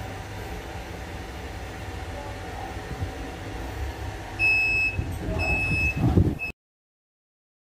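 Passenger lift car humming steadily as it travels down and stops, then the lift's electronic signal beeps twice in a steady high tone, about half a second each, with a short third beep, while the doors slide open with a low rumble. The sound cuts off abruptly near the end.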